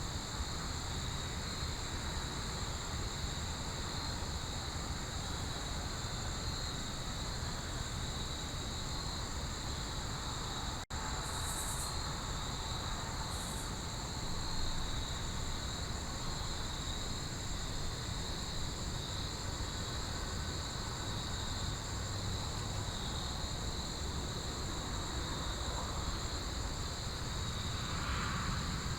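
Steady chorus of crickets and other insects, a continuous high trill at two pitches, over a low background rumble.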